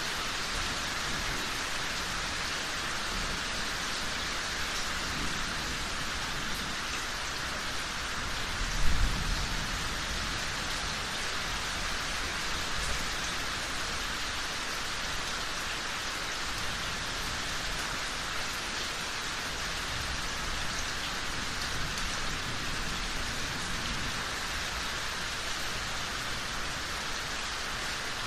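Steady heavy rain falling, with a single low thunder rumble about nine seconds in.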